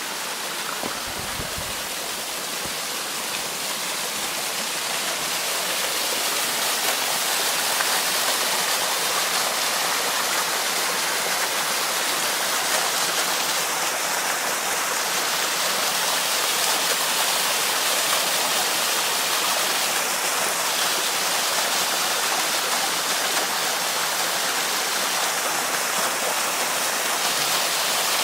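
Waterfall: a steady rush of falling water, growing a little louder over the first few seconds and then holding even.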